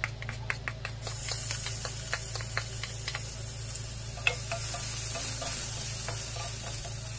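Chopped onion hits hot oil in a stainless steel saucepan and starts sizzling suddenly about a second in, after a few quick taps as it is pushed in. The sizzle then runs on while a wooden spatula stirs the onion, clicking now and then against the pan.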